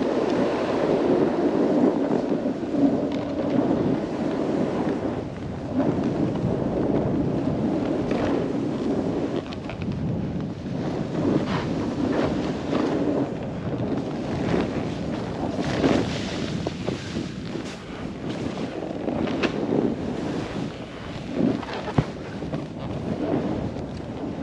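Wind rushing over an action camera's microphone while snowboarding through deep, sticky powder, with the board hissing through the snow and scattered short scrapes and knocks.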